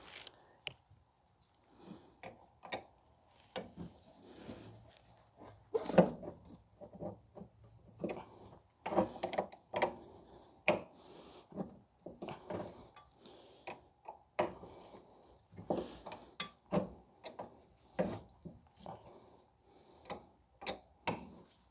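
Flare-nut wrench working a rusted brake line fitting loose at a rear brake caliper, with irregular metal clicks and knocks as it is turned in short strokes.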